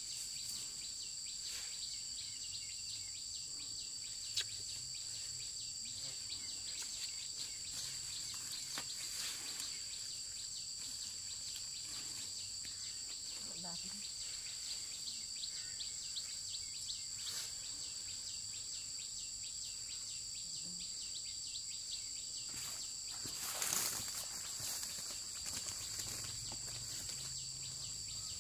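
Insect chorus: a steady, high-pitched drone at two pitches. Scattered light rustles and clicks run through it, with a sharp click about four seconds in and a louder rustling burst near the end.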